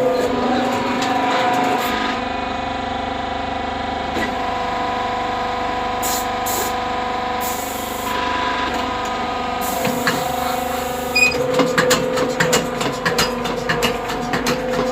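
Brick-making press machine running with a steady mechanical hum; about two-thirds of the way in a fast run of knocks and clatter starts over the hum.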